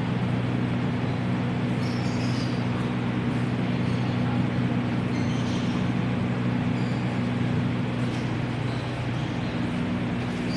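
A steady low mechanical hum with a few fixed tones, unchanging throughout, over a background hiss.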